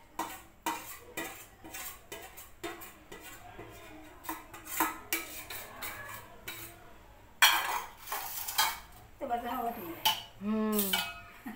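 Steel ladle stirring curry in a stainless steel pot, scraping and knocking against the pot's sides in quick irregular clinks, with one louder metal clang about seven and a half seconds in.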